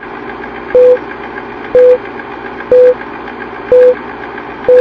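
Old-film countdown sound effect: a steady projector whir and clatter with a short beep about once a second, five beeps in all. It cuts off suddenly.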